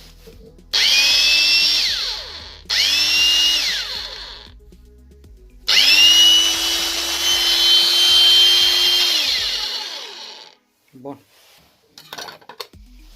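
Bosch angle grinder switched on three times, each time spinning up with a rising whine. The first two runs are short bursts; the third runs steadily for about three and a half seconds before it is switched off and the whine slides down as the disc winds down. This is a test run after its worn gears were replaced.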